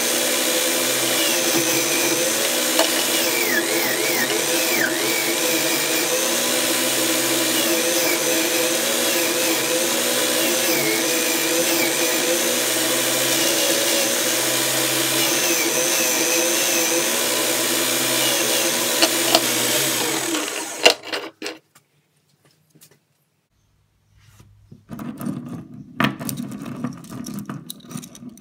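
Electric drill clamped in a vise, spinning a brass wire brush wheel as a rusty chain and hook are pressed against it to scrub off the rust; the motor runs steadily, its pitch dipping and wavering under the load, then stops about three-quarters of the way through. Near the end, steel chain links clink as the chain is handled.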